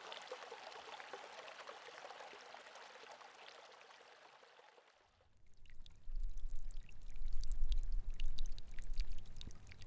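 A brook's running water, fading out about halfway through. Then a louder recording of water rippling and splashing over stones comes in, a patter of small splashes over a low rumble.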